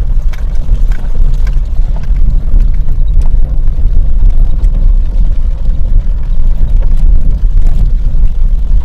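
Car cabin noise while driving on a wet cobblestone street: a loud, steady low rumble of engine and tyres, with a few faint scattered ticks.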